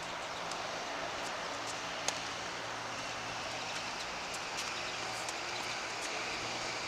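Tennis rally on a hard court: a ball struck by rackets and bouncing, heard as sharp knocks at irregular intervals, the loudest about two seconds in, over a steady wash of outdoor background noise.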